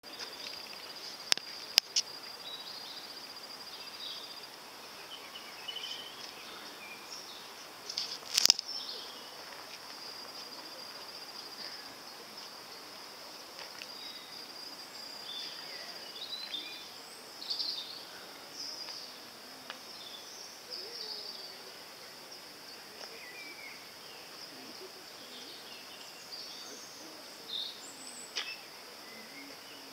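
Outdoor garden ambience with scattered bird calls over a steady high-pitched trill or hiss. A few sharp clicks stand out, the loudest about eight seconds in.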